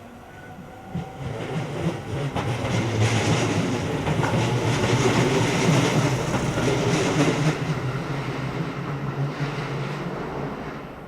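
Tobu Railway electric train running by on the rails. It swells about a second in, is loudest mid-way, and fades near the end, with wheels clacking over rail joints.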